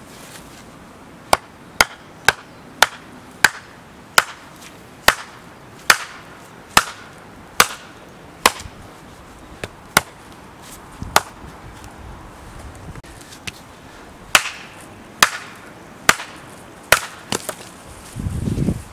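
Repeated chopping, a blade striking wood: about twenty sharp strikes, roughly one a second, with a short pause midway. A low rumble near the end.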